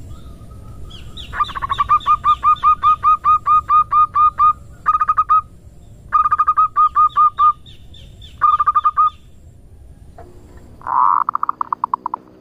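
Female zebra dove (perkutut) calling in the rapid 'ngerot' style used as a lure call: runs of short notes that each hook upward, about five a second, in four runs, then a shorter, rougher run near the end.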